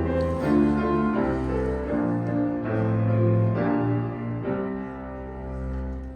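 Instrumental accompaniment playing the closing bars of a stage-musical song, with chords changing about once a second, then a final held chord that fades out near the end.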